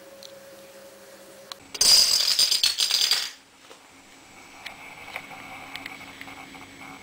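A row of small plastic dominoes toppling in a chain: a quick run of clattering clicks starting about two seconds in and lasting about a second and a half, then stopping abruptly.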